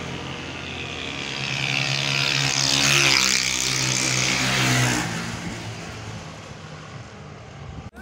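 A 70cc motorcycle engine running hard as the bike approaches and passes close by. The sound swells to its loudest about three seconds in, then fades away after about five seconds.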